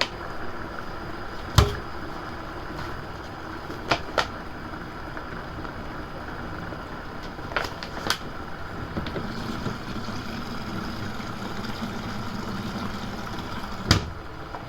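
Retro-style washing machine running with a steady hum and a faint steady tone, broken by six short sharp knocks, the loudest about a second and a half in and another near the end.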